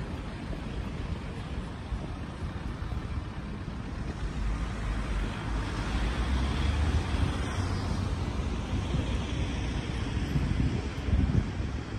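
Outdoor town-street ambience: a steady low rumble of wind buffeting the microphone over distant traffic noise.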